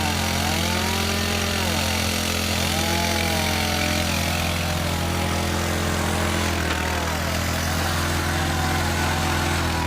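A small engine running steadily at idle, with wavering tones that rise and fall coming and going above it.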